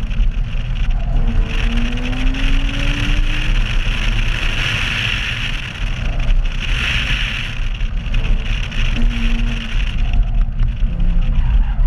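A Porsche Boxster Spyder's flat-six engine running hard during an autocross run, its pitch climbing and easing off several times as it accelerates between corners. A steady rush of wind and road noise sits over it.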